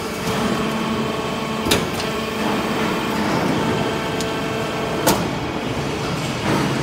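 Hydraulic metal-chip briquetting press running with a steady mechanical hum, and two sharp knocks about three and a half seconds apart as it cycles.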